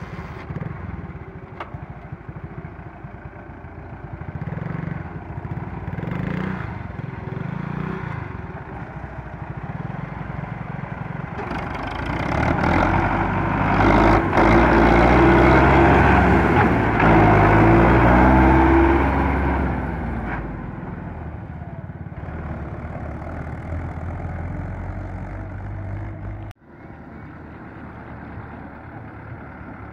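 Belarus 510 tractor's four-cylinder diesel engine pulling a fully loaded trolley. It grows louder as the tractor draws near and passes close by about halfway through, then fades as it moves off. It cuts off suddenly near the end and returns more distant and steady.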